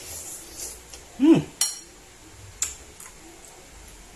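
A metal spoon clinks twice against a ceramic bowl during eating, each clink sharp and ringing. Just before the first clink comes a short, loud hummed "mmm" of enjoyment that rises and then falls in pitch.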